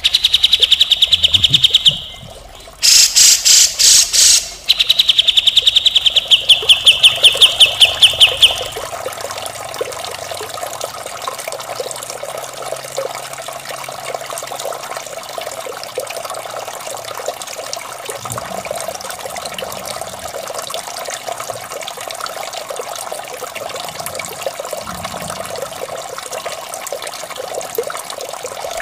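Cucak jenggot (grey-cheeked bulbul) song: a rapid run of harsh, repeated high notes, for about the first nine seconds. It then gives way to a steady trickle of running water.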